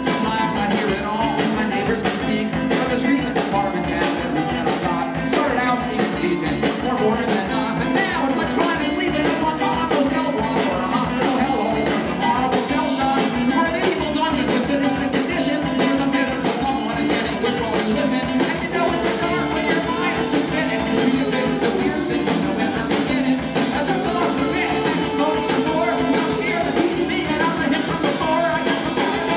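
A live rock band playing: acoustic guitar, electric guitar and a drum kit keeping a steady beat, with singing.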